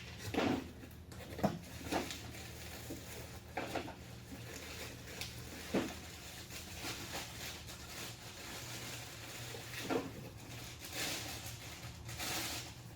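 Scattered light knocks and clicks from parts being handled, with two longer bursts of rustling near the end, over a faint steady hum.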